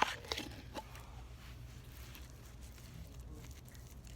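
Slime being squeezed and worked by hand, giving a few sticky crackles and pops in the first second, then only faint squishing over a low steady hum.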